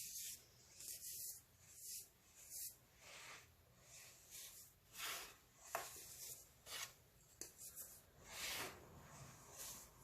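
Baking soda being crushed, a quiet series of short, dry crunches at irregular intervals, roughly one every half second to a second.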